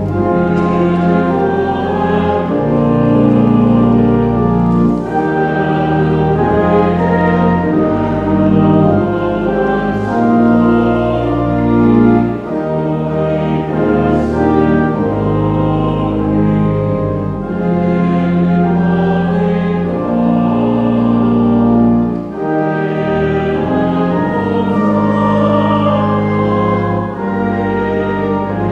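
A hymn sung by a congregation with organ accompaniment. The chords are held and change every second or two.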